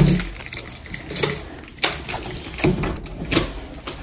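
Footsteps with rustling of clothing and phone handling, dull thumps landing about every half second to a second. A brief high beep sounds about three seconds in.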